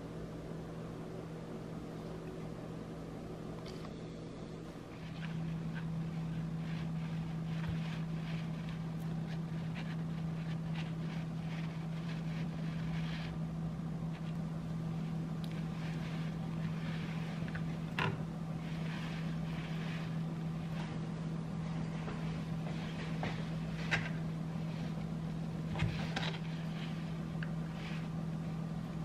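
Steady low machine hum that steps up in level about five seconds in and then holds. A few light knocks over it, as food and a knife are handled on a plastic cutting board.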